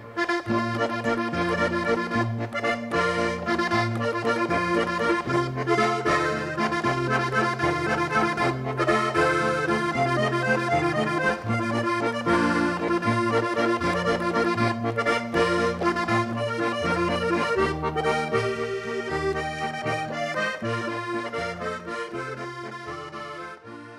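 Accordion music with a bass that steps between notes about every half second, fading out near the end.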